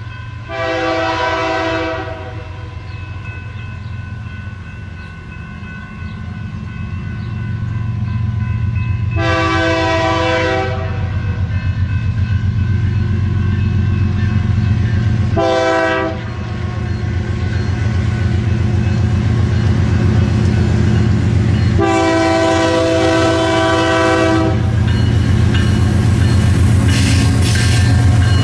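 BNSF ES44DC diesel locomotive sounding its air horn in the grade-crossing signal, long, long, short, long, over the low rumble of its engine, which grows louder as the train approaches. Near the end the wheels clatter over the rail joints as the locomotives reach the crossing.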